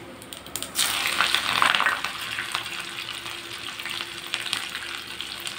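Hot oil and ghee in a small tempering ladle bursting into loud sizzling about a second in as chopped ginger, green chillies and curry leaves are dropped in on the frying cumin and pepper. After about a second the sizzle eases into a steady crackling fry.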